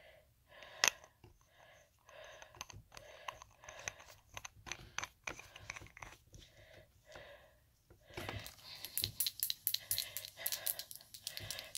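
Small clicks and rustles of a nail polish bottle being handled, with one sharp click about a second in and a quick run of clicks and rattles near the end.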